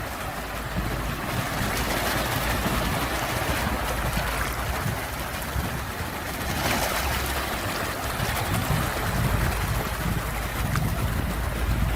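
Ocean waves: a continuous rushing wash over a low rumble, swelling a little about two seconds in and more strongly about halfway through.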